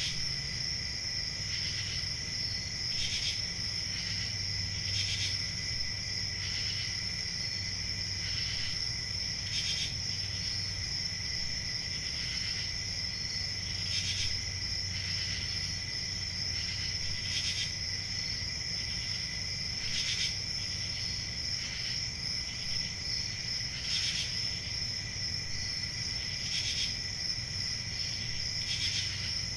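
Crickets chirping: a steady high trill, with louder chirps standing out every second or few, over a low hum.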